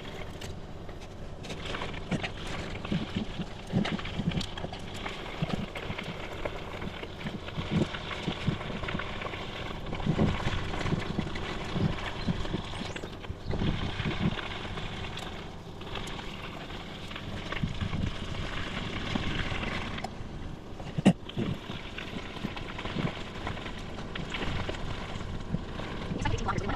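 Bicycle with knobby 29-inch mountain-bike tyres riding over a rough path: steady rolling noise with frequent small rattles and knocks from the bike, and one sharp knock about three-quarters of the way through.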